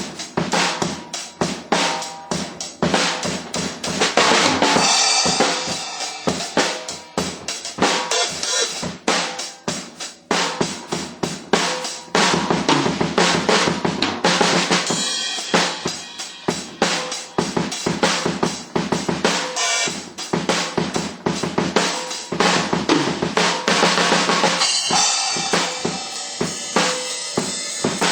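Drum kit being played continuously, with its bass drum damped by a pillow stuffed inside so that it sounds "nice and tight".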